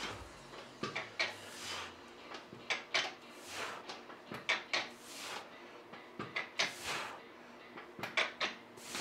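Gym equipment being handled: scattered, irregular knocks and clicks with a few short sliding, rubbing sounds, fairly quiet.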